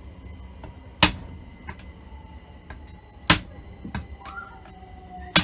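Sharp metal knocks and lighter clicks of a tool working on a Holley 4160 carburettor to prise off a part held by a stuck gasket: three hard knocks roughly two seconds apart, with small clicks between.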